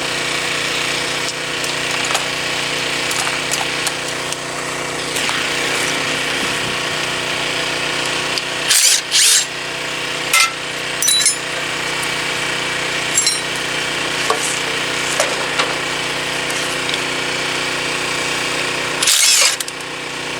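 Hand tools working on metal while an engine runs steadily: scraping and clicking, with two short, loud bursts of noise, one about nine seconds in and one near the end.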